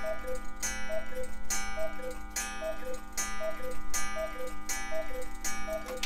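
Hönes Black Forest cuckoo clock calling the hour with its bellows cuckoo. It gives about eight two-note cu-ckoo calls, high then low, a little under a second apart, each with a click from the mechanism.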